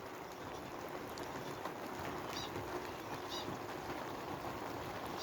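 Steady hiss of hail and rain falling in a shower, with a few faint, short high chirps.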